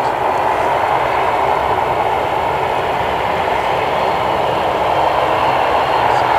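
Jet engines of a Boeing 777-200ER on its landing roll: a loud, steady rushing noise with no breaks.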